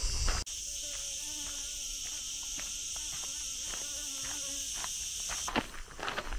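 Steady high-pitched shrilling of insects, with a fly buzzing close by through the middle. Footsteps on gravel come back near the end.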